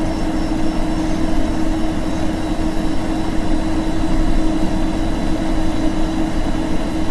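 Midland ER310 weather radio's speaker giving a steady hiss of static with a low, even hum, no broadcast voice.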